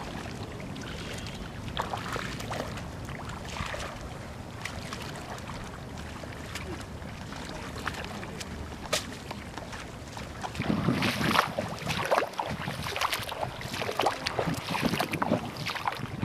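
Wind on the microphone: a steady low rush with faint scattered ticks, turning into louder, uneven gusts buffeting the mic from about ten seconds in.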